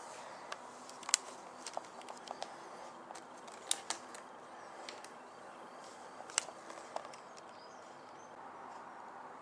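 Scattered sharp clicks and taps from handling a cardboard model-aircraft box and its plastic display tray, over a faint steady hiss.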